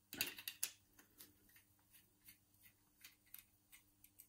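Screwdriver working the screws of a brass mortice lock's front plate: a quick cluster of small metallic clicks and scrapes in the first second, then sparse faint ticks.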